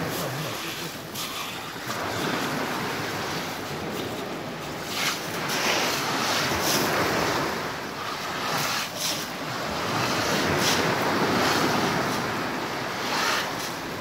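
Sea surf washing on a pebble beach, rising and falling in slow surges, with wind buffeting the microphone. Short crunches of pebbles come now and then.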